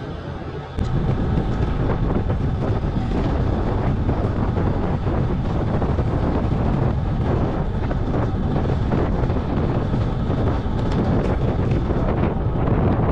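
Wind buffeting the microphone of a camera riding on a moving bicycle: a steady, loud rumbling noise that cuts in suddenly about a second in.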